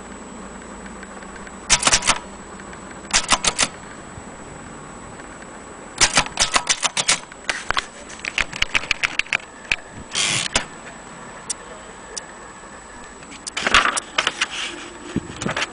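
Vintage Corona portable typewriter being typed on: short runs of sharp key-strike clicks, dense in the middle, with a brief rasping sweep about ten seconds in.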